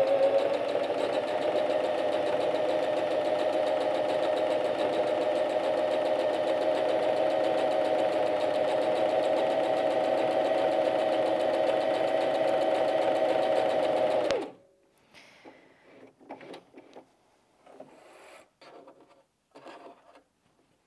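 Bernette 05 Academy heavy-duty mechanical sewing machine stitching free-motion with the feed dogs dropped, running at a steady, even speed. It stops suddenly about two-thirds of the way through, and only faint rustles and clicks of fabric handling follow.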